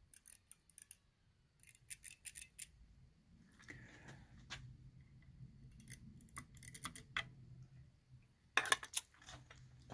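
Scattered small clicks and light taps in a few quick clusters, with quiet gaps between them: small 3D-printed plastic parts being handled on a workbench.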